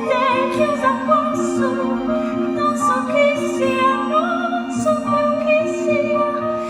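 Musical-theatre score played live by an orchestra, with a soprano voice singing long notes with vibrato.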